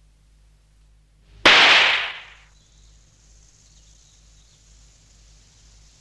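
A single dueling-pistol shot about a second and a half in, its report dying away within a second.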